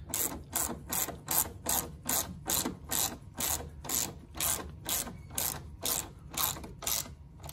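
Small hand ratchet with an extension being swung back and forth to snug a camber plate bolt, its pawl clicking on each stroke. The strokes come in a steady rhythm of a little over two a second and stop near the end.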